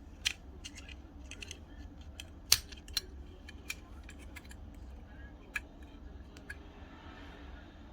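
Small metal parts of a diecast toy car clicking and clinking as it is taken apart by hand, its rivets already drilled out. Scattered light clicks, with two sharper ones about two and a half and three seconds in.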